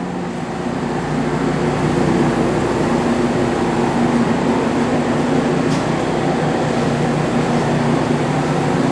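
Metal lathe running steadily while turning the steel fast collar of a sawmill mandrel, a constant machine hum that gets louder about a second in.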